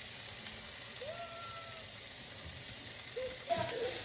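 Potatoes sizzling as they fry in a pan, a steady hiss. A short pitched sound rises and holds about a second in, and there are brief pitched sounds again near the end.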